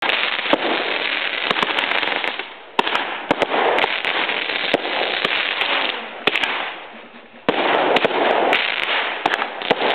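Consumer fireworks shooting rising streams of sparks and coloured stars: a loud, continuous hissing spray peppered with sharp crackling pops. The hiss dies down twice, near three seconds in and again around seven, each time starting up again abruptly.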